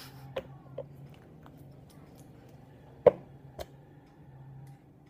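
Sharp clicks and knocks of a small e-liquid bottle and a steel vape atomizer being handled on a glass counter, the loudest knock about three seconds in. A faint low hum runs underneath and stops near the end.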